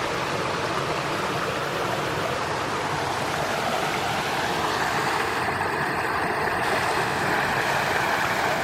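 Waterfall: a steady rush of falling water, a little brighter in tone about halfway through.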